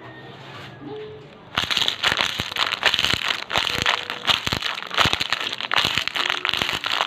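Loud, wet, crackly chewing close to the microphone, a dense run of irregular clicks and crunches that starts suddenly about a second and a half in, after a quieter opening.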